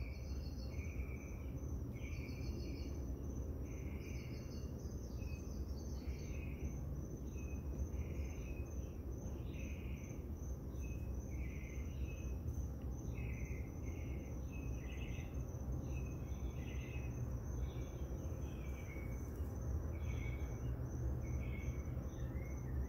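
Night insects calling: a steady high cricket trill and, beneath it, repeated pulsed chirps about once a second, over a steady low hum.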